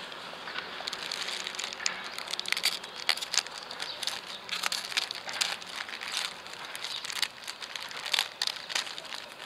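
Plastic Amazon poly mailer bag crinkling and crackling in an irregular run as it is handled and slit open with a snap-off utility knife.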